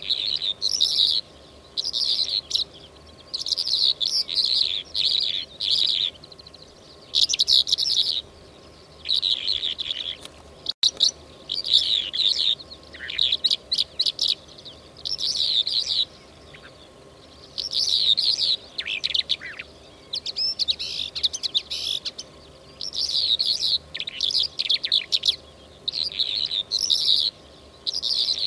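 Recorded lark song played as a hunting lure call: bursts of high, rapid chirping and trilling phrases, each a second or two long, separated by short pauses.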